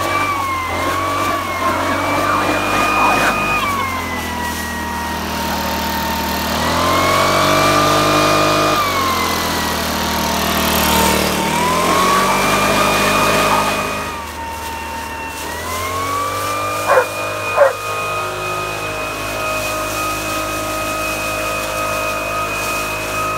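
Handheld leaf blower running, its whine rising and falling several times as the speed is changed, then holding at high speed. A dog barks twice, about two-thirds of the way through.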